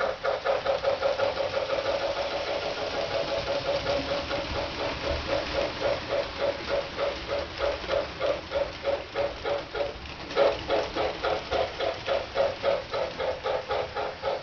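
MTH RailKing Pennsylvania K4 model steam locomotive's sound system playing a steady steam chuff, about three to four beats a second, which grows louder about ten seconds in.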